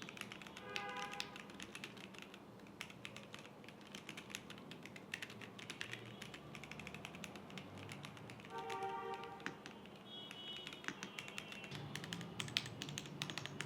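Typing test on a JamesDonkey A3 gasket-mounted mechanical keyboard with Gateron G Pro 2.0 White linear switches: a continuous run of quick keystrokes, faint and somewhat muted, with a slightly high-pitched clack. Faint background music tones twice.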